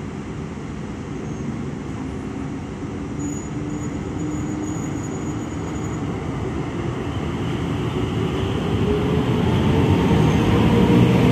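PKP Intercity EP09 electric locomotive hauling passenger coaches slowly past at close range: a low rumble with several steady humming tones, growing louder as the locomotive draws near and goes by near the end.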